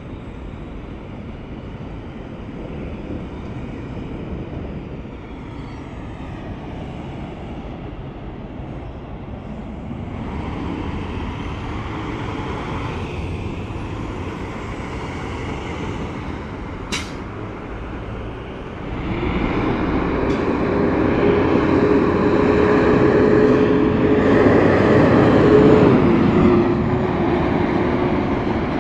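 Semi-trucks passing on a highway. The road noise swells about a third of the way in, and about two-thirds of the way in a big rig goes by loudly with a steady whine that drops in pitch as it passes. There is a single sharp click a little past the middle.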